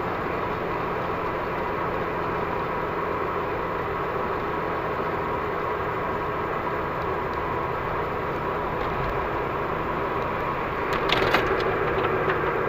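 In-cabin noise of a VW Golf V GTI rolling slowly at about 50 km/h: steady road and tyre noise with the engine barely audible. A short patch of crackling clicks comes near the end.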